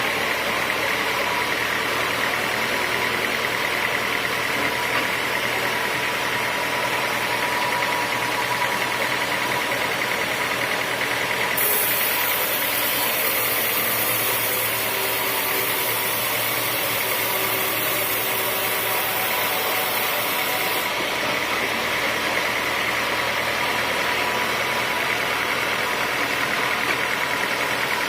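Sawmill machinery running steadily, with a constant high whine over its noise.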